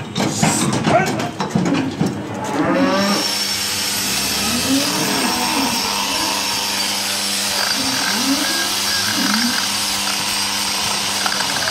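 A high-speed electric hand tool starts about three seconds in and runs steadily with a high whine, during cattle hoof trimming. Before it there are short knocks and clatter.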